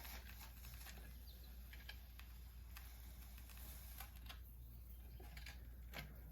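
Near silence: faint room tone with a few light clicks.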